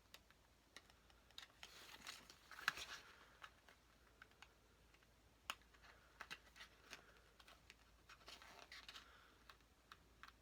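Faint handling noise: scattered light clicks and two short scratchy rustles, about two seconds in and again near the end, as a fingernail picks at a sticker to test whether it peels.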